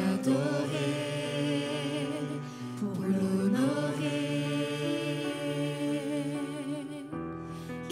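Small group of singers singing a French worship song in harmony through microphones, holding long notes, with digital piano accompaniment.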